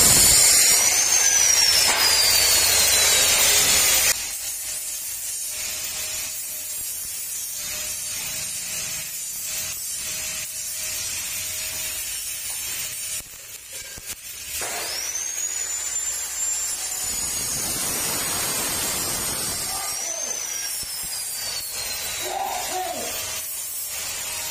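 Stick welding on steel square tubing: a loud crackling hiss that cuts off abruptly about four seconds in and returns for a few seconds after the middle. A power-tool motor's whine falls in pitch twice and rises once, and a faint steady hum runs through the quieter stretch.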